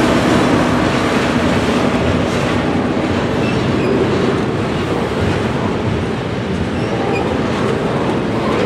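Double-stack container train of well cars passing close by: steady, loud noise of wheels and cars running on the rails.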